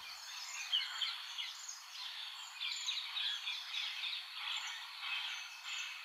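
Faint ambience of many small, high-pitched animal chirps overlapping, thin, with no low sound beneath them.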